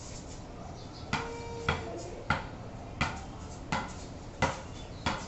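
A tennis ball bounced up off a wooden bat again and again: seven sharp knocks, about one every two-thirds of a second, starting about a second in.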